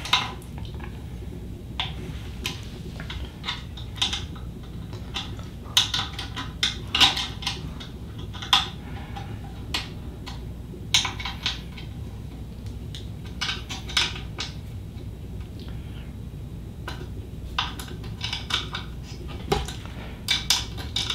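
Irregular light metallic clicks and clinks of a hex key working the screws of an Ender 3 Pro's Y-axis belt tensioner as it is tightened back down, with uneven gaps between them.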